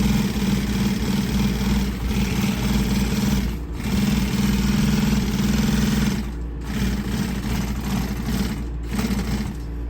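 Industrial walking-foot upholstery sewing machine stitching at speed in three runs, with short stops about a third and two thirds of the way through.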